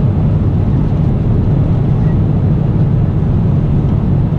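Steady jet airliner cabin noise in cruise flight, a deep even rumble of engines and airflow heard inside the passenger cabin.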